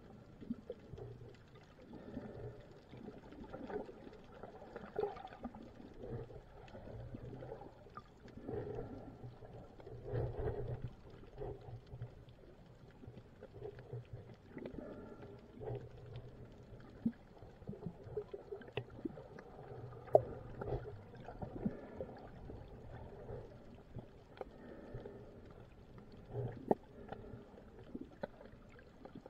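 Muffled underwater sound picked up by a submerged camera: low, uneven water noise that swells and fades, with scattered faint clicks and knocks.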